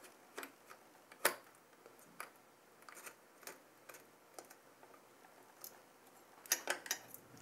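Faint, irregular small clicks and taps of screws and fingers against a low-profile CPU cooler's metal mounting bar and heatsink as the mounting screws are started by hand, with a quick cluster of clicks near the end.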